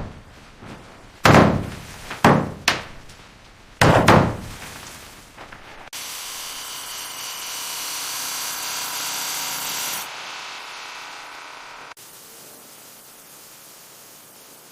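Construction work: four heavy thuds on wood in the first few seconds, then a steady hiss that starts suddenly about six seconds in, drops after about four seconds and carries on more quietly.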